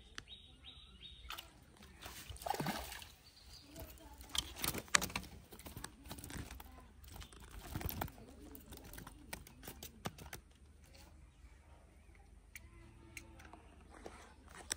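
Irregular splashing, knocks and rustling as a small hooked fish is landed from a pond and handled, with scattered sharp clicks and a few louder knocks in the first ten seconds.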